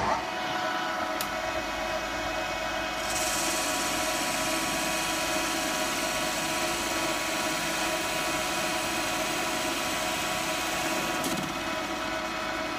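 Manual metal lathe running with a steady hum of motor and gears. From about three seconds in to about eleven, a bright hiss joins it as the tool takes a cut on the spinning workpiece. The sound starts and stops abruptly.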